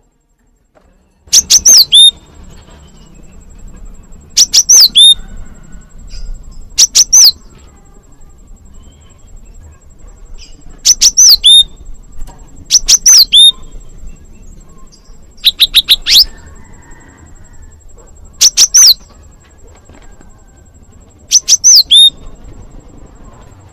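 Cinereous tit (glatik batu) giving its sharp 'wucit wucit' call: short, high, downward-sliding notes in quick bursts of two to four, repeated every two to three seconds. The calls are loud.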